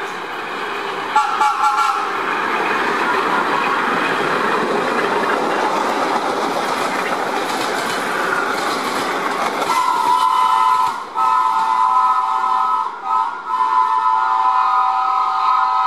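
Vintage R1/R9 subway train running past on the tracks, a steady rumble of wheels on rail, with a short horn toot about a second in. From about ten seconds in a subway horn sounds in long blasts with brief breaks.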